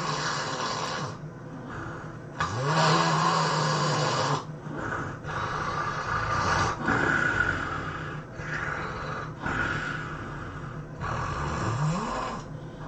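A person snoring heavily in sleep: long, loud snores every few seconds, several opening with a low tone that slides upward, with shorter noisy breaths between them.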